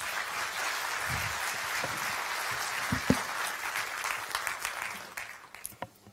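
Lecture-hall audience applauding to welcome a speaker. The clapping fades out about five seconds in, with a few last single claps near the end, and there is one short thump about three seconds in.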